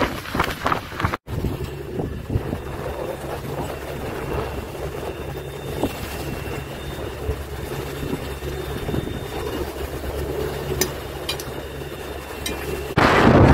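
Sailing yacht's inboard diesel engine running steadily under a low hum. Wind buffets the microphone loudly in the first second and again from near the end.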